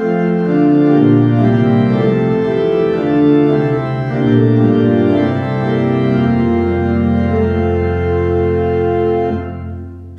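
Church organ playing slow sustained chords, with a deep bass note joining about halfway through, then dying away just before the end: the introduction to the sung Gospel acclamation.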